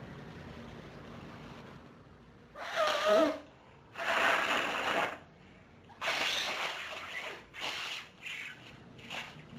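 A woman sniffing and breathing hard through her nose during an allergic sneezing fit. About three seconds in comes one short, loud voiced outburst with a falling pitch, then a run of noisy breaths and sniffs that get shorter toward the end.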